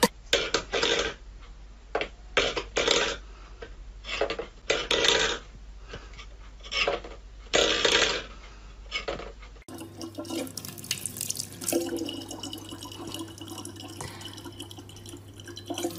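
A run of short clattering sounds, one every second or so. After a cut near the ten-second mark comes a thin stream of tap water running steadily into a plastic water bottle, under a low steady hum.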